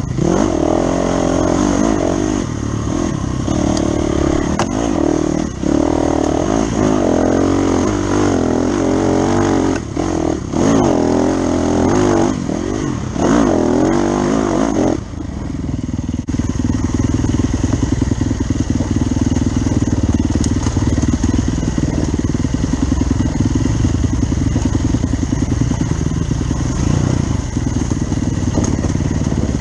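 Dirt bike engine under way on a trail, its pitch rising and falling repeatedly as the throttle opens and closes through the gears for the first half. About halfway through it settles into a steadier, lower-pitched run.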